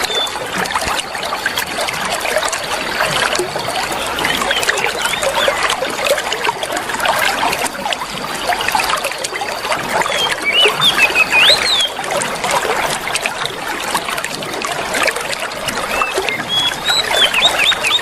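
Water trickling and splashing steadily, with birds chirping quick whistled notes over it in small bursts, the busiest clusters about two-thirds of the way through and near the end.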